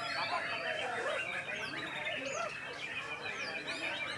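Many caged white-rumped shamas (murai batu) singing at once: a dense, steady chorus of overlapping whistles and chirps.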